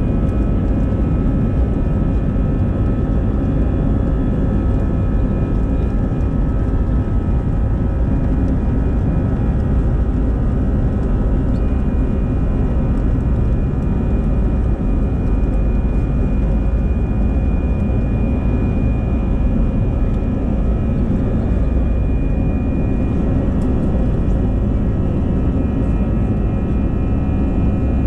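Airbus A320's jet engines heard from inside the passenger cabin: a loud, steady rumble and rush, with a thin whine coming in about halfway through.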